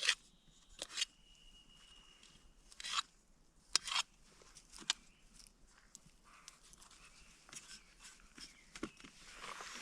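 Knife cutting morel mushrooms: a handful of short, light clicks and knocks in the first five seconds, with soft rustling near the end.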